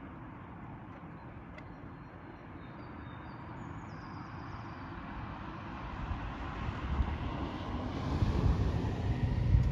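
A road vehicle passing on the street, its steady tyre and engine noise growing louder over the last few seconds as it comes closer.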